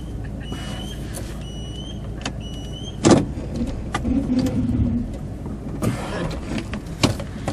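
Pickup truck engine running at idle as the truck creeps forward a couple of feet. A sharp knock about three seconds in is the loudest sound, with a second knock near the end.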